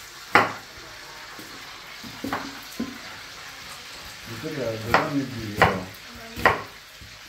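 Chef's knife cutting onion on a wooden cutting board: several sharp knocks of the blade on the board, spaced out at first, then three in quick succession near the end. Underneath runs a steady sizzle of food frying in a pan on the stove.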